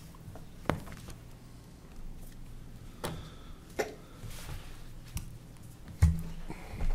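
Papers being handled and passed across a table, with a few light knocks on the tabletop; the loudest is a dull thump about six seconds in.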